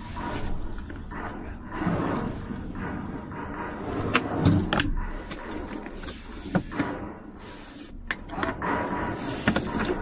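Clicks and knocks of the latch and door of a cabinet under a truck's sleeper bunk being handled, with rustling from the hand and phone, the sharpest clicks about midway and near the end.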